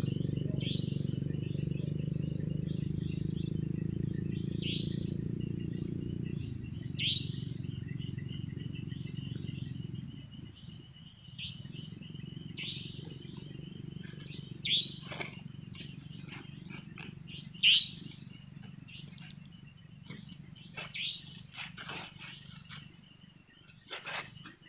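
Riverbank evening wildlife: short chirping animal calls repeating every second or two over a steady high insect trill. A low rumble runs underneath and fades about ten seconds in.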